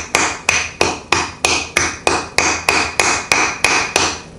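Wooden rolling pin pounding peppermint candies in a plastic zip-lock bag on a stone countertop: a steady run of sharp knocks, about three a second, each with a brief ring.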